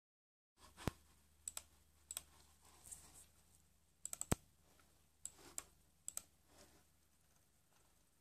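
Scattered sharp clicks and taps, several in quick pairs and a rapid run of four about four seconds in, over a faint steady low hum.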